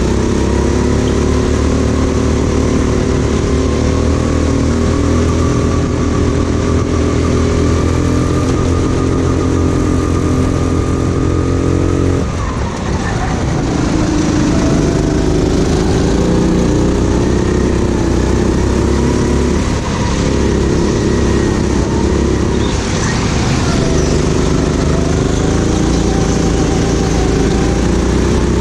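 Racing kart engine running near full throttle, its pitch creeping slowly upward, then cut off abruptly about twelve seconds in as the driver lifts for a corner and rising again as it picks back up; two shorter dips in revs come later.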